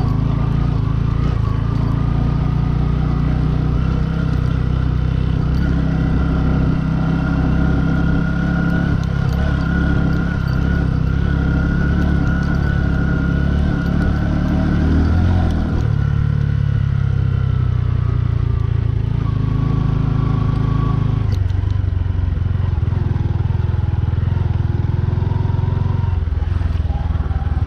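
Bajaj Boxer 150's single-cylinder four-stroke engine running as the motorcycle rides along, its note changing about halfway through and again about three-quarters through.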